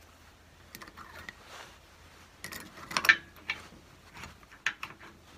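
Scattered light metal clicks and taps of the variable-speed control handle and its hub being handled and seated on a Powermatic 90 wood lathe's headstock, the loudest about three seconds in.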